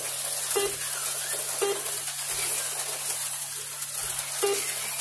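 HO-scale slot cars running on the track: a steady high hiss and hum, with short pitched blips every second or two.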